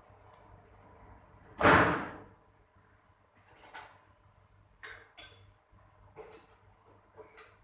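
Work at a Heidelberg GTO offset press while a printing plate is being mounted: one loud clank about two seconds in, then several lighter knocks and clicks, one with a brief metallic ring. The press is not running.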